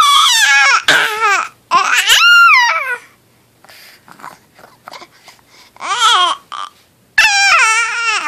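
Infant babbling in loud, high-pitched vocal bursts with a wavering, sliding pitch: five bursts, with a pause of a few seconds in the middle.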